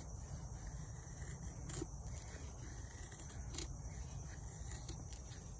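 A2 steel knife blade shaving curls off a dry wooden stick to make a feather stick: a few faint scraping strokes, more than a second apart, over steady background noise and a high insect drone.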